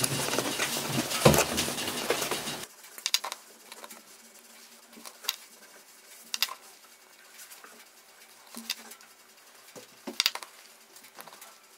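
Small wooden sticks and dowels clicking and tapping against a workbench as they are handled and fitted. There is a dense clatter for the first two or three seconds, which stops suddenly, then a handful of single light taps a second or two apart.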